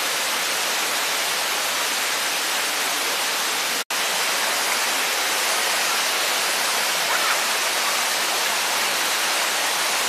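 Steady rushing of a waterfall, an even hiss of falling water, broken by a split-second dropout about four seconds in.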